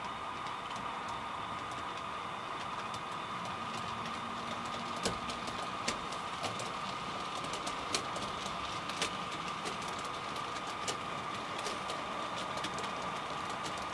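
HO scale model train running on the track: a steady high whine with scattered sharp clicks as the wheels pass over rail joints.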